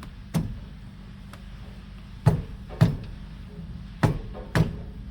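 Hand tools knocking on the car's rear suspension parts: about six sharp knocks, the louder ones in pairs about half a second apart.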